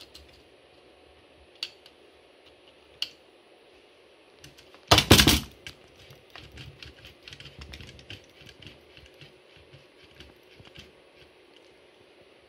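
Clicks and light rattling of plastic and metal parts on a model truck chassis being handled, with one louder clatter about five seconds in.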